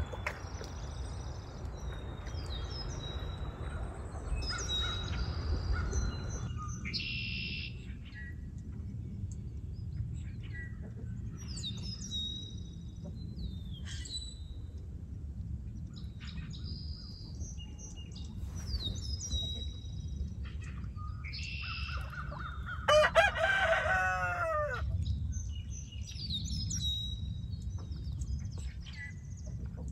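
Small birds chirping over and over, with water splashing during the first six seconds as ducks dabble in the pond. About 23 seconds in, a rooster crows once, the loudest sound here.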